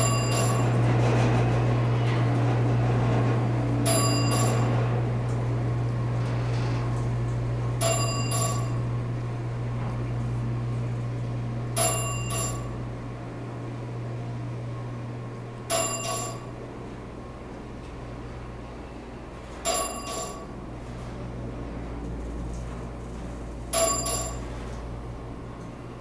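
Elevator car travelling down. Its floor-passing chime gives a single ding at each floor, seven dings about four seconds apart, over a steady low hum of the car in motion that is louder in the first ten seconds or so.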